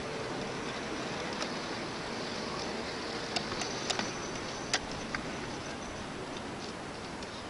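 Ride-on 5-inch gauge battery-electric model tram rolling along its track: a steady running noise with a few sharp clicks and ticks bunched in the middle, the loudest nearly five seconds in.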